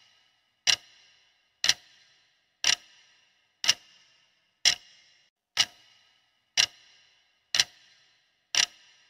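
Countdown-timer clock-tick sound effect: sharp ticks, one per second, nine in all.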